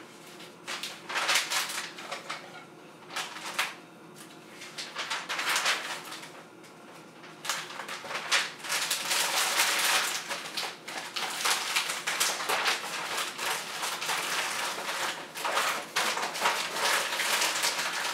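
Sheets of packing paper rustling and crinkling as they are pulled over and folded around a stack of dinner plates. It comes in short separate bursts at first and becomes almost continuous from about halfway through.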